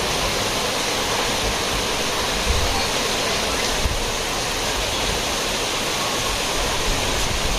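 Steady rushing of water, an even unbroken roar.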